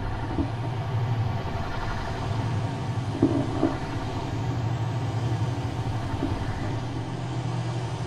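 Electronic soundtrack of an abstract visual-music film: a steady low drone under a haze of noise. A few short accents stand out over it, the strongest about three seconds in.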